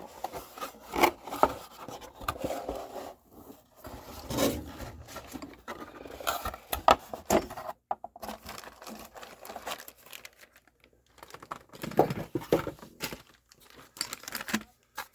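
Packaging crinkling and rustling as items are lifted out of a box, with irregular clicks and knocks of handling.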